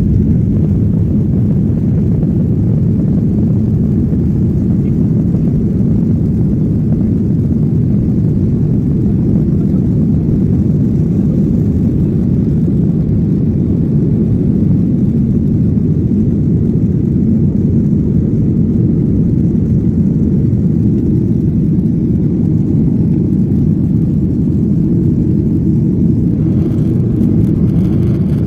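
A Boeing 737's jet engines at takeoff thrust, heard from inside the passenger cabin: a loud, steady low rumble through the takeoff roll and climb-out.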